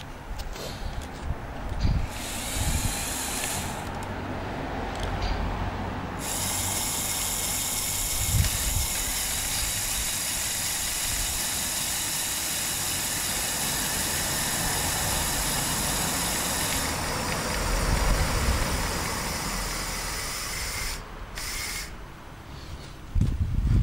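Small electric motors and gearing of a Lego Technic model crane truck whirring steadily as the crane boom raises and telescopes out, with a short run first, then a long one that stops a couple of seconds before the end.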